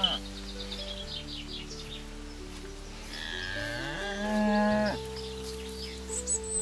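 A cow mooing: one long call starting about three seconds in, rising in pitch and then held for about a second before stopping, with the tail end of an earlier moo right at the start.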